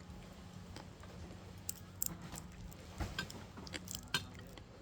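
A person chewing and eating, with several sharp clicks scattered through, over a steady low hum.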